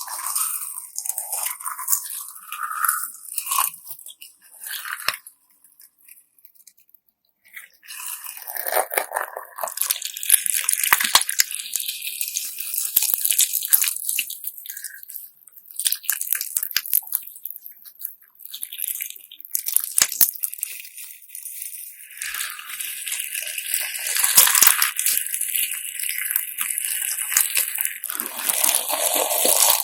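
Slime packed with glass sand being squeezed and pressed by hand, giving a gritty, crunching crackle of many small clicks. It stops briefly about six seconds in, then carries on.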